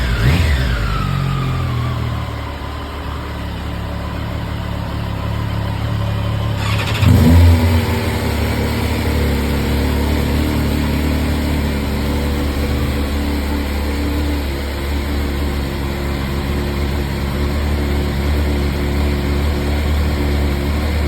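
Stock-exhaust sport-bike engines on a cold start: a few falling blips of revs settle to idle, then about seven seconds in a second engine starts with a sharp burst and settles into a steady high cold idle alongside the first.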